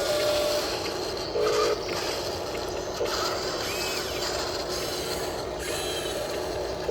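Steady whirring of radio-controlled model construction machinery's small electric motors, with a short electronic beep about a second and a half in.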